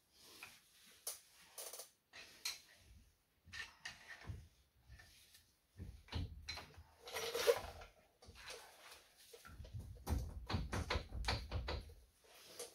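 Flathead screwdriver prying a brake caliper, pads still in it, off a Ram 1500's front rotor: metal-on-metal scraping and clicking in scattered strokes, with a longer scrape about seven seconds in and a run of heavier clunks and rattles near the end.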